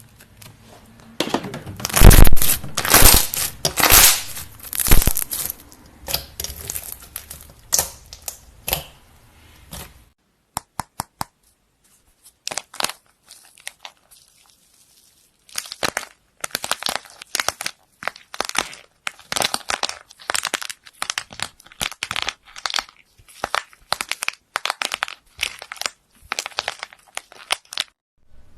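Slime being squeezed and pressed by hand, giving dense crackling and popping. It is loudest in the first few seconds, falls to a few scattered pops in the middle, and resumes as steady crackling near the end.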